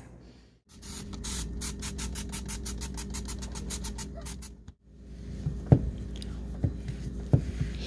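Dawn Powerwash dish spray squirted in a rapid run of short spray pulses, several a second, onto a greasy work light, followed after a break by a towel wiping the foam off, with a few light knocks as the light is handled.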